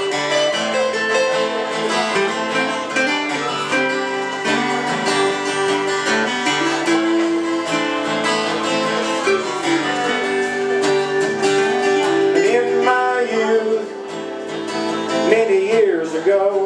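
Live slow country ballad played on two acoustic guitars with an electric keyboard holding chords underneath, an instrumental passage between sung lines.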